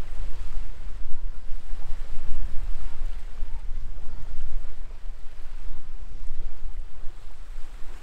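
Wind buffeting the microphone: a gusty low rumble that rises and falls unevenly, over a faint rushing hiss.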